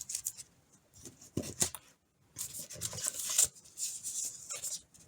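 Calibration films and packaging of a paint thickness gauge kit being handled: irregular bursts of rustling and rubbing, with a couple of light taps about a second and a half in.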